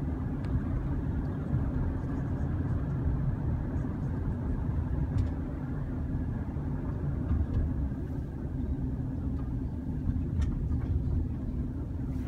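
Car cabin noise while driving: a steady low rumble of engine and tyres on the road heard from inside the car.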